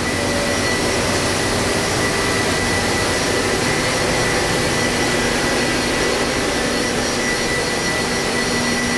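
Hurco VM20i CNC vertical machining center running with its spindle set to about 2,000 rpm: a steady whirring hiss with a thin, steady high whine.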